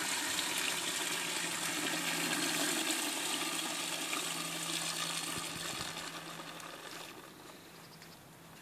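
A male horse urinating in a steady stream into a plastic bucket, the splashing dying away about seven seconds in.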